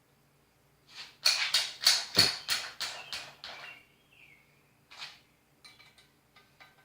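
Ratchet wrench being worked back and forth on bike bolts: a quick run of about ten strokes, roughly three a second, then one more stroke and a few lighter clicks.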